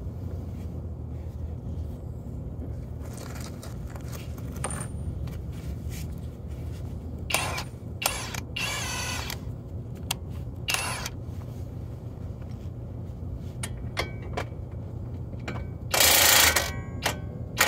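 Scattered metal clinks and clanks of hand tools and suspension parts being worked on a car, a few with a short metallic ring, over a steady low hum. A louder burst of rattling noise lasting about a second comes near the end.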